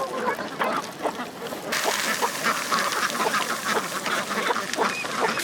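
A flock of ducks quacking, many short calls overlapping. A steady hiss sets in suddenly under the calls just under two seconds in.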